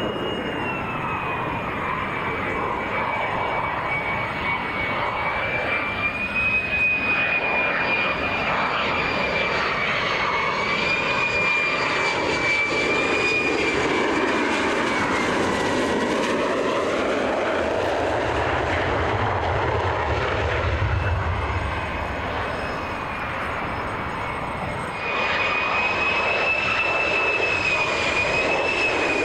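F-35A fighter on landing approach with its gear down, its single F135 turbofan running with a high, slightly wavering whine over a steady rush of jet noise. The whine fades for a while, then the sound steps up suddenly about 25 seconds in as the jet comes closer.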